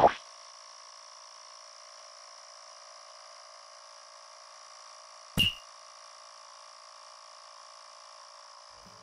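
Small 12 V tyre air compressor (BAL No.498) running steadily off a portable power station, drawing about 92 watts; its hum sounds thin and faint, turned down. Two sharp clicks, one at the start and one about five seconds in.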